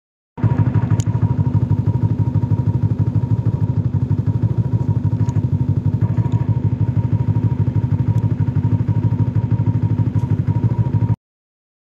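Snowmobile engine running steadily at a constant speed, with a fast even firing pulse and a low hum. A few faint clicks sound over it. It starts abruptly just after the beginning and cuts off abruptly near the end.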